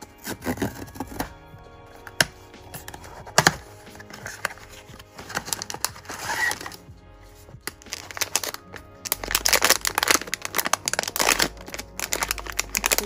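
A cardboard blind box being opened by hand, with a couple of sharp snaps of its flaps, then a sealed plastic inner bag pulled out and crinkled in a dense run of crackles near the end. Soft background music plays underneath.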